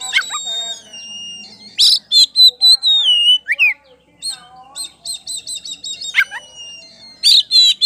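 Oriental magpie-robin singing a loud, varied song: quick runs of repeated high chips at about five a second, long whistled notes that slide down in pitch, and sharp downward-sweeping notes, with lower warbling phrases mixed in.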